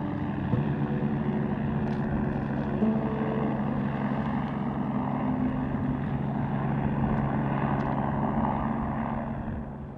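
A BK117 twin-engine helicopter in flight, climbing away: a steady rotor and turbine drone that fades out near the end.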